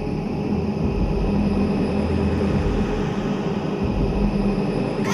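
Steady, deep rumbling sound effect of a flaming meteor hurtling through the sky.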